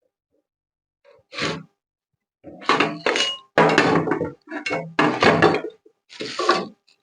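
Handling noises while unpacking a circular saw: a single knock about a second and a half in, then a quick run of knocks, clatter and rustling.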